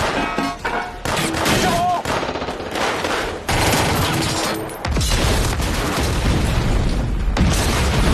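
Gunfire in an action-film soundtrack, with a shouted voice near the start. A heavy low rumble sets in about five seconds in, like the aftermath of an explosion.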